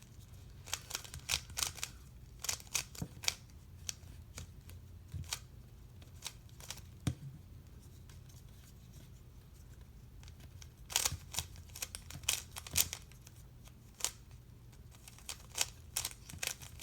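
Rubik's cube being turned by hand: quick runs of plastic clicks as the layers rotate, in several bursts with pauses between, during the last layer of a solve.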